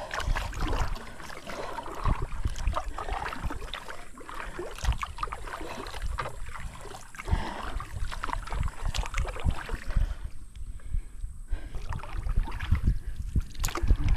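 Kayak being paddled: paddle strokes splashing in the water, with irregular knocks and low thumps against the boat, and a quieter stretch near the end.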